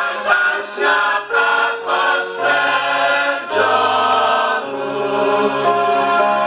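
A choir singing in several parts, holding long chords that change every second or so.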